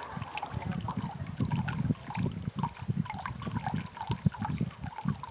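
Thin stream of water running from a bamboo spout into a stone tsukubai basin, with many small irregular plinks and splashes over an uneven low burble.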